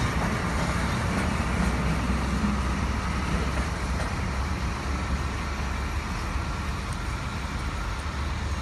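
Diesel locomotive hauling a train of 1930s 'Centoporte' carriages away, a steady low engine rumble with running noise that slowly fades as the train recedes.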